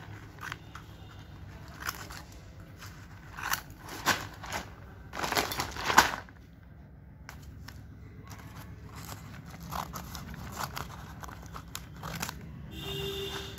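A medicine delivery package being opened by hand: irregular crinkling, tearing and rustling of the packaging, with a denser, louder stretch of tearing about five to six seconds in.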